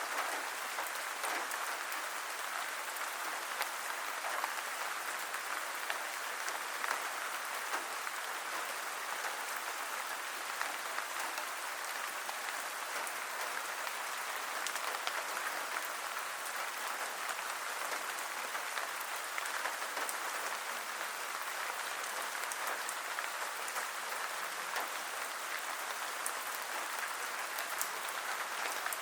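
Steady heavy rain falling, a dense even hiss with many small drop ticks.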